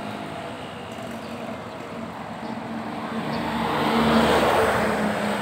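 A motor vehicle driving past on the street: its engine and tyre noise swell about three seconds in, is loudest around four seconds, then fades, over a steady background of street traffic.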